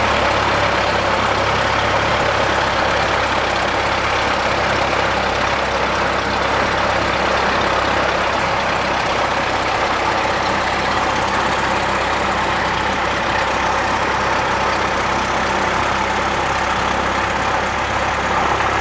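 Cessna 172's four-cylinder Lycoming engine and propeller running steadily at takeoff power, heard inside the cabin as an even drone with a low hum beneath and airflow noise.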